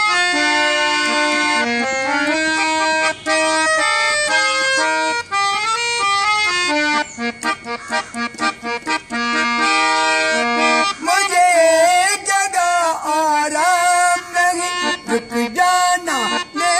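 Portable harmonium playing a melody as an instrumental interlude between sung lines, held notes stepping from one to the next and a run of quick short notes in the middle. In the last third a man's voice joins, singing long wavering notes over the harmonium.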